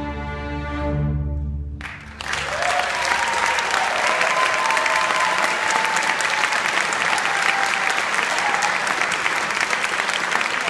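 A string orchestra holds its final chord, which cuts off about two seconds in; the audience then breaks into steady applause, with a few cheers.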